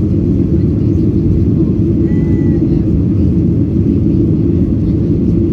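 Cabin noise inside a Boeing 737-800 climbing just after takeoff: the CFM56 engines at climb thrust and the airflow over the fuselage make a loud, steady low rumble.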